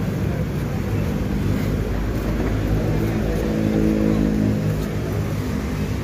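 Steady low rumble of road traffic, with an engine's hum swelling about three seconds in and fading out by five.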